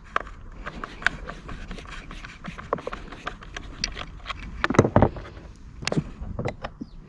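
Taking apart a leaf blower's plastic housing: scattered light clicks and scrapes of a screwdriver, screws and plastic parts being handled, with louder knocks about five and six seconds in.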